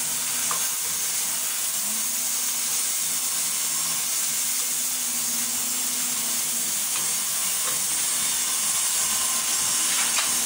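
Food frying in hot oil in a pan, a steady sizzling hiss, with a few light clicks.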